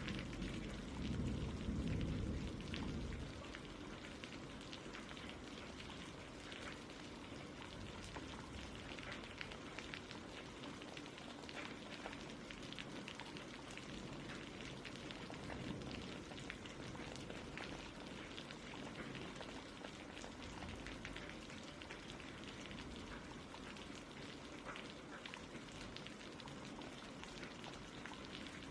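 Steady rain falling: an even hiss with many scattered drop ticks. A low rumble dies away about three seconds in.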